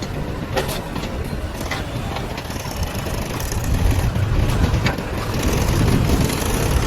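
JCB 3DX backhoe loader's diesel engine running under load while it digs and loads soil, growing louder about halfway through, with a few sharp knocks.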